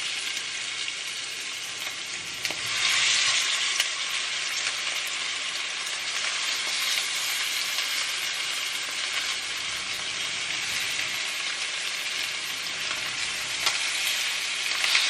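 Chicken pieces sizzling in a hot frying pan as they are laid in one by one. The sizzle swells louder a couple of seconds in and again near the end as fresh pieces hit the pan.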